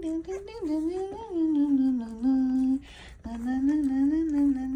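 A woman humming softly to herself in long gliding phrases, with a short break about three seconds in.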